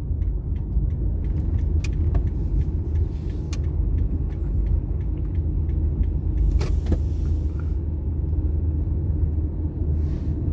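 Car driving, heard from inside the cabin: a steady low rumble of engine and road noise, with scattered small clicks and rattles at irregular moments.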